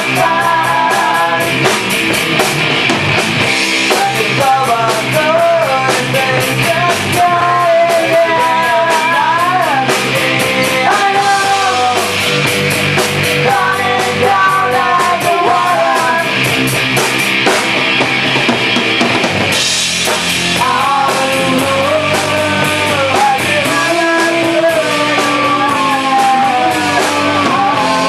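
A rock band playing live and loud: electric bass, electric guitar and a drum kit, with a voice singing the melody into a microphone.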